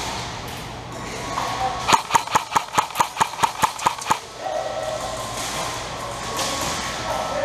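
Airsoft gun firing a quick string of about a dozen sharp cracks, about five a second, for roughly two seconds.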